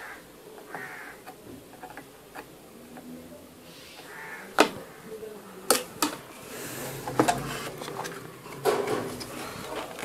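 A few sharp clicks and taps of hand tools and a circuit board being handled, the loudest about halfway through, with short harsh calls like a crow's caw now and then.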